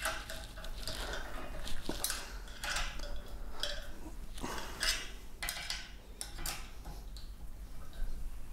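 Hex key working the fasteners that join aluminium T-slot extrusion sections: irregular metallic clicks, clinks and scrapes as the key is turned and reseated.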